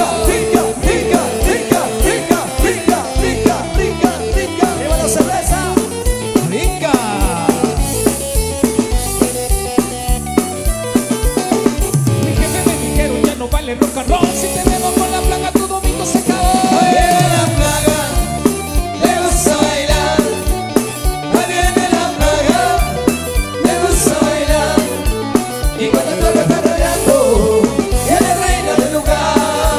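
Guatemalan marimba orchestra playing loud dance music live, with a steady drum-kit beat under the marimba and band.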